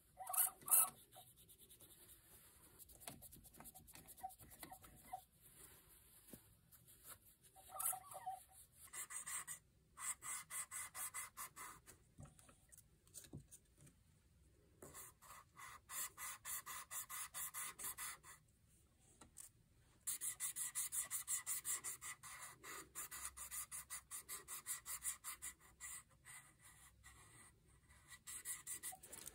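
Abrasive strip rubbing against a fountain pen barrel turning in a small lathe: rapid, regular scratchy rasping with a high hiss, in several stretches with short breaks, mostly in the second half.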